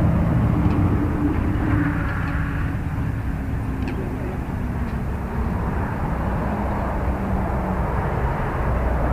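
Wind buffeting the microphone, a steady low rumbling noise, with a faint low drone that fades away over the first few seconds.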